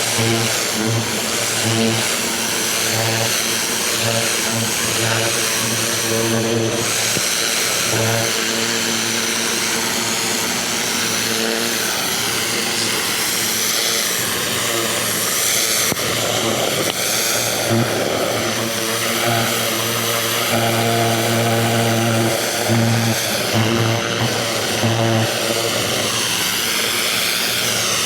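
Ryobi 2000 PSI electric pressure washer spraying a high-pressure jet of water against a wooden fence, with a steady hiss of spray. The washer's motor and pump hum underneath, dropping out and coming back several times.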